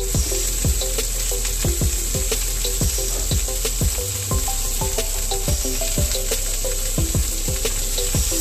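Steak sizzling in a hot frying pan, a steady hiss, with background music with a steady beat playing over it.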